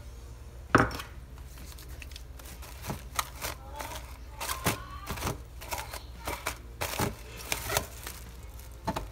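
Plastic cling wrap crinkling and crackling irregularly as it is handled and pulled off a glass bowl, with a sharp crackle about a second in.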